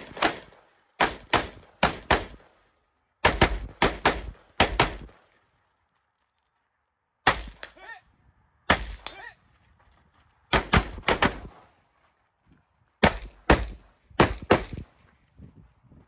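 About twenty gunshots fired in quick strings of one to six shots, with pauses of one to two seconds between the strings.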